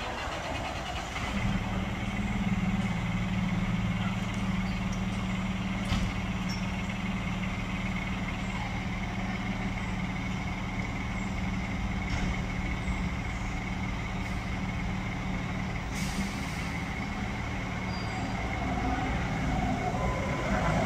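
A 2019 E-One Cyclone X fire engine's diesel engine runs steadily, its sound stepping up about a second in. A short hiss of air comes about three-quarters of the way through.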